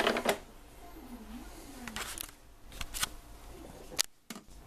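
A few light plastic clicks and taps, the sharpest near the end, from hands handling a Nescafé Dolce Gusto capsule coffee machine.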